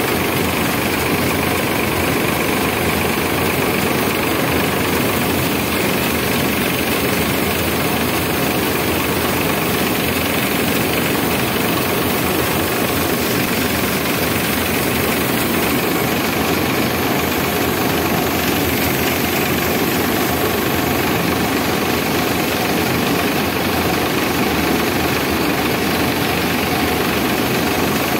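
Sonalika DI 745 tractor's diesel engine running steadily under load while powering a drum thresher, the engine and the spinning threshing drum making one continuous, even din.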